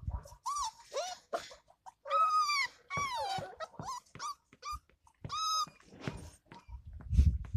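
Puppies whining and yelping: a run of about eight short, high, arching whines, the longest about half a second. Near the end comes a low rumble.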